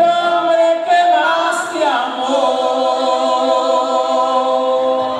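Voices singing without accompaniment, holding long notes that glide between pitches, then cutting off abruptly at the end.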